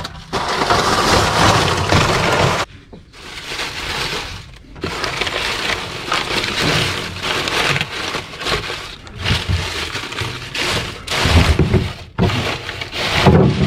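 Dry leaves crackling and rustling as they are crushed and packed by hand into a wooden chicken nest box. The sound comes in irregular bursts with short pauses.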